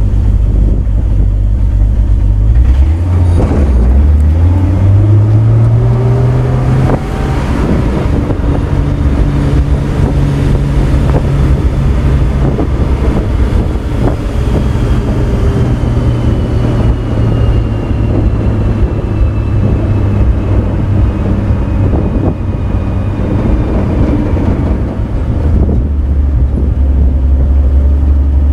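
A 1966 Chevrolet pickup truck driving along, heard from its open bed: a low engine drone that rises as the truck speeds up a few seconds in, then holds steady, over road noise with frequent knocks and rattles.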